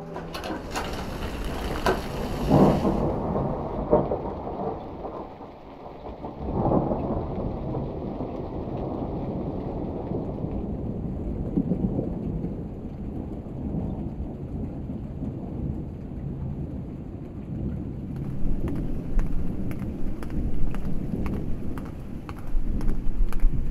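Thunderstorm sounds in an ambient soundscape: rolling thunder rumbles over steady rain, with the loudest swells in the first seven seconds. In the last third a crackling patter with a high hiss comes in over the rumble.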